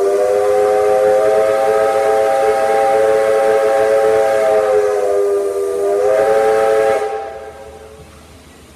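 Steam locomotive R761's whistle sounding one long, loud blast of about seven seconds, a chord of several tones. The pitch sags briefly about five seconds in, then comes back up before the whistle shuts off near the end, leaving a short echo.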